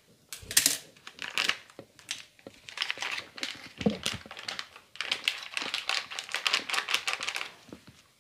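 Plastic packet of gulab jamun mix crinkling and crackling as it is handled and the powder is shaken out into a plastic bowl, with a dull knock about four seconds in.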